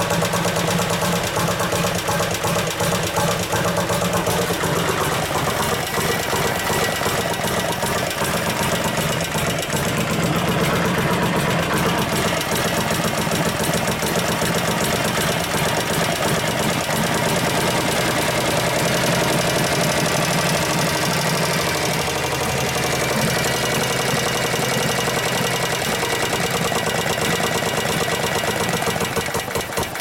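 1965 Harley-Davidson Panhead 74 cubic inch V-twin running at idle just after its rebuild, with a steady fast ticking from the valve train. The owner puts the ticking down to one hydraulic lifter making a lot of noise.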